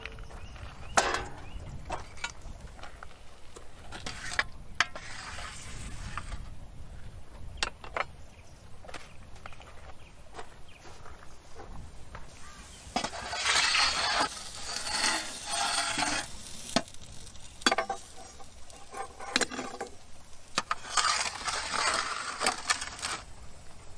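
Roasted lamb shoulders being handled with metal tools in a wood-fired oven: scattered clinks and knocks of metal on a metal pan, with two longer stretches of scraping, sizzling noise.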